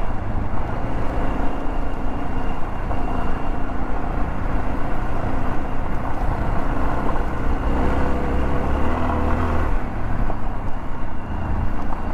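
Yamaha XT 600 E's single-cylinder four-stroke engine running under throttle off-road, swelling louder and higher for a couple of seconds about eight seconds in, then easing off.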